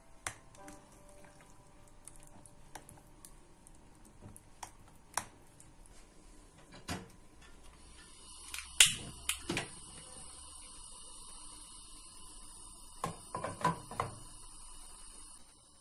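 A metal spoon clicking and scraping on a ceramic plate while mashing potatoes, then a gas hob burner lit with a long click lighter: a steady hiss comes in with a few sharp clicks, and near the end a pan knocks down onto the metal grate.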